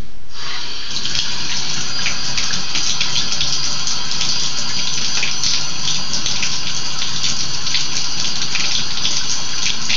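Bathtub tap running, a steady stream of water pouring into the tub.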